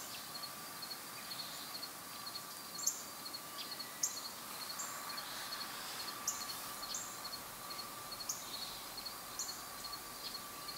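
Outdoor ambience of small birds chirping: short, high notes that slide downward, repeated about every second. Under them, insects tick in rapid runs and a faint steady hum runs throughout.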